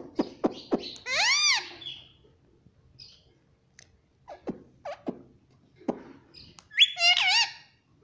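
Rose-ringed parakeet making a series of sharp clicks, then a loud arching call about a second in. A few more scattered clicks follow, and a second call near the end rises sharply and then wavers.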